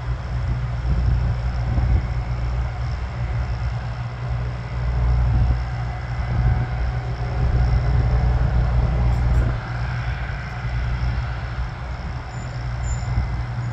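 Twin-engine business jet taxiing, its engines giving a steady high whine over a low rumble that rises and falls.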